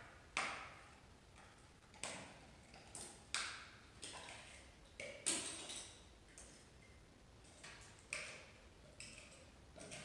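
A hand tool knocking and scraping at gypsum wall plaster, chipping it off the cover of a buried electrical junction box. It makes about nine sharp, irregular knocks, roughly one a second, some louder than others.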